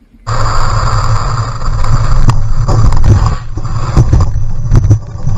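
Car driving fast with an open window: a steady engine drone under loud rushing wind. The wind buffets the microphone with irregular sharp pops. It starts abruptly a moment in.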